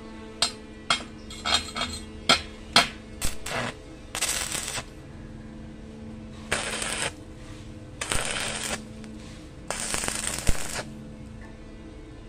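Stick arc welding on the steel bolt and chain piece: a string of sharp snaps as the electrode is struck to start the arc, then four short bursts of crackling arc, each under a second, as tack welds are laid.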